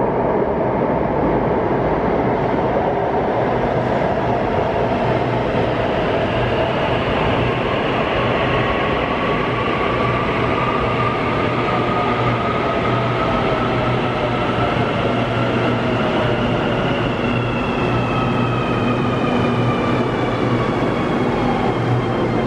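CAF AS-2014 metro train running past the platform behind the screen doors. Under the steady running noise, an electric motor whine rises in pitch over several seconds and then falls, with higher whines falling near the end.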